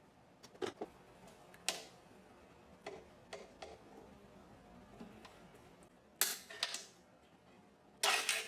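Small clicks and knocks of tools and parts handled on a workbench, scattered irregularly. Two longer rattling clusters come, one past the six-second mark and the loudest near the end.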